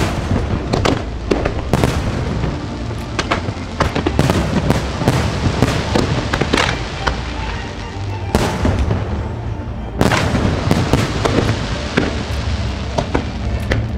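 Fireworks display: aerial shells bursting in quick, irregular succession, sharp bangs and crackles several per second over a low rumble, with a brief let-up about two-thirds of the way through.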